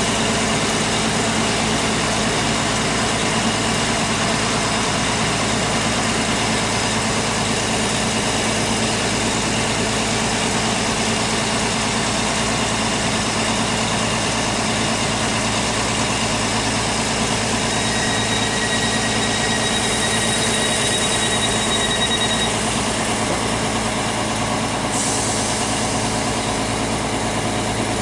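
Diesel multiple unit idling at a station platform, its underfloor engine running steadily. Past the middle a steady high beep sounds for about five seconds, and a hiss of air starts and then cuts off suddenly a few seconds later.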